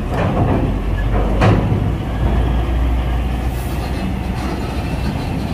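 Low, steady diesel engine rumble of heavy vehicles rolling off a ferry, with a single knock about a second and a half in.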